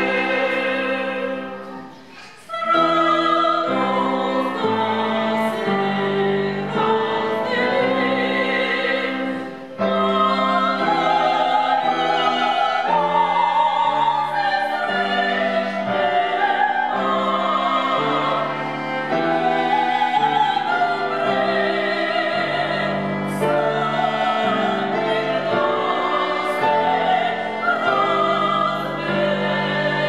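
Two sopranos singing in classical style, accompanied by cello and piano. The music briefly breaks off about two seconds in, then carries on.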